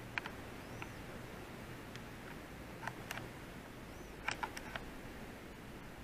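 Quiet room hiss with scattered soft clicks in small clusters: two near the start, three about three seconds in and four or five in quick succession about four and a half seconds in, with a couple of faint high chirps between them.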